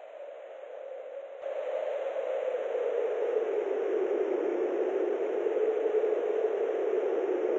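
A steady rushing noise like wind. It jumps louder about a second and a half in, and its pitch slowly sinks.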